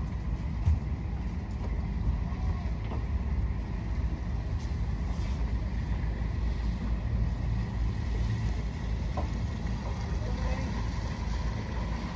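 A speedboat's engine running steadily at low speed, a continuous low rumble.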